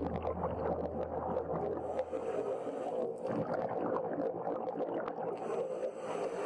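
Muffled underwater sound picked up through a diving camera's housing: steady crackling and scattered clicks. A low hum stops about two and a half seconds in, and a brief hiss comes near the end.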